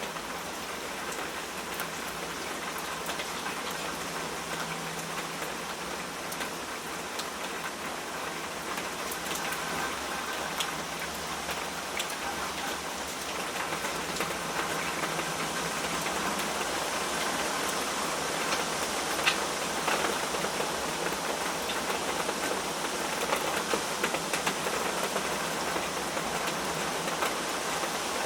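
Steady rainfall, a dense hiss of rain with many individual drops ticking on a surface, growing a little louder about halfway through.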